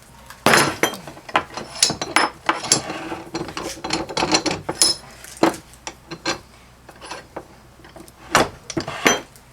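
Metal parts of a dismantled electric water pump being handled and worked on: irregular clanks, clicks and scraping, with no steady rhythm.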